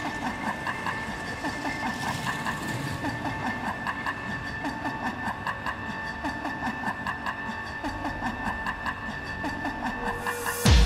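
Background music: a quick, even rhythmic pulse with short pitched notes over a few held tones, ending in a loud hit just before the end as the music changes.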